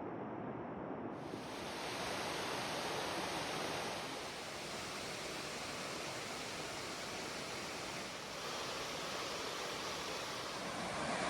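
Waterfall rushing: a steady, dense wash of falling water that turns brighter about a second in.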